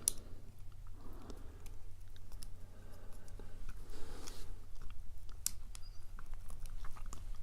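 Light, scattered clicks and scrapes of a small metal tool working at the steel C-clip of a padlock being taken apart.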